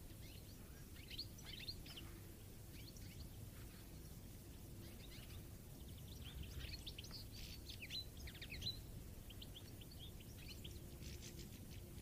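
European goldfinches twittering: faint runs of rapid high chirps and trills, over a steady low background rumble.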